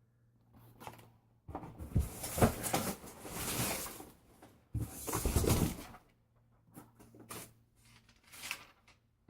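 A cardboard shipping box being opened by hand: tearing and rustling of cardboard and packing tape in two stretches of a few seconds each, then a few light taps and clicks.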